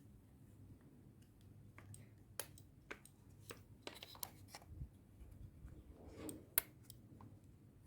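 Scattered small clicks and taps of car door lock parts being handled and worked apart by hand, the sharpest about six and a half seconds in.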